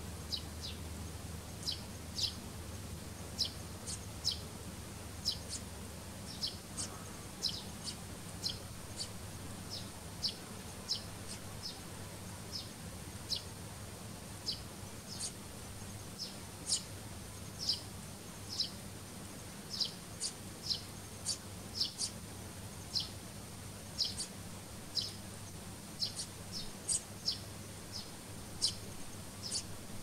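Eurasian tree sparrows chirping: short, sharp chirps repeated about once or twice a second.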